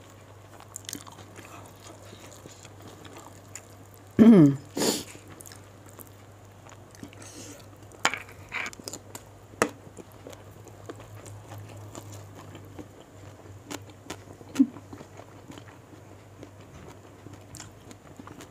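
A person eating with her hands: chewing and mouth noises with scattered sharp clicks. About four seconds in comes a short, loud vocal sound falling in pitch, followed by a sharp noise. A low steady hum runs underneath.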